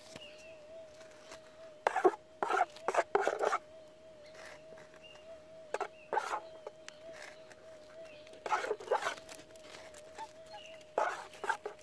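Minelab SDC 2300 metal detector's steady threshold hum, a single held tone with a slight warble, while a hand scoop scrapes into gravelly soil several times.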